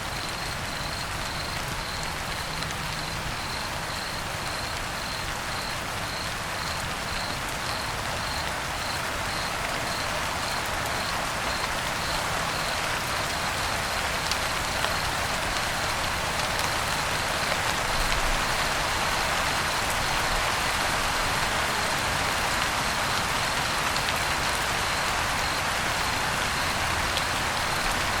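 Steady rain falling, with a cricket chirping in a regular high-pitched pulse over it. The chirps fade out about halfway through while the rain grows a little louder.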